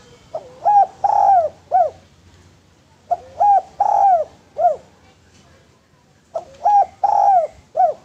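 Spotted dove cooing three times, each phrase about three seconds after the last. Each phrase has four coos, the third held longest.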